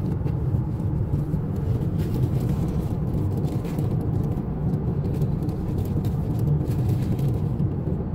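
Car travelling on the road: a steady low rumble of engine and tyre noise.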